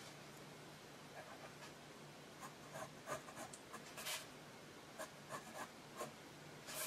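Pen scratching on paper in short, faint strokes while drawing an arrow, over a faint steady low hum.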